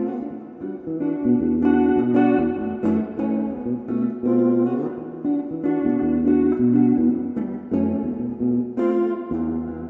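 Background music carried by a plucked guitar, with changing bass notes beneath.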